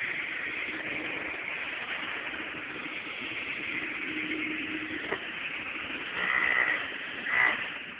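Ridgid WD1670 wet/dry shop vacuum running as a blower: a steady motor whine with rushing air. There is a sharp click about five seconds in, and two brief louder surges near the end.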